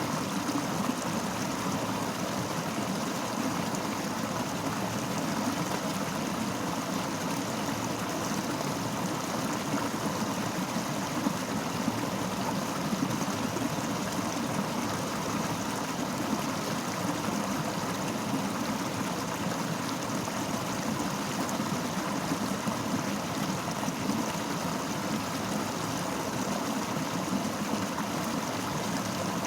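Fast-flowing river: a steady, unbroken rush of water.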